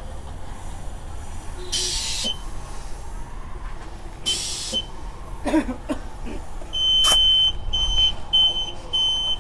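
Compressed air hissing in two short bursts from a tyre-inflator chuck pressed onto a scooter's tyre valve. It is followed by a digital air pump beeping high-pitched, a long beep and then several shorter ones, signalling the tyre is filled.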